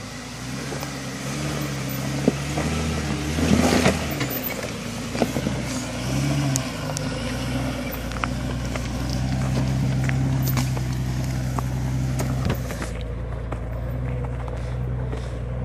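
Jeep Grand Cherokee WJ engine pulling at low revs as it crawls over rocks, its pitch rising and falling with the throttle, then holding steadier. Gravel crunches and rocks click and knock under the tyres, loudest in a crunch about four seconds in.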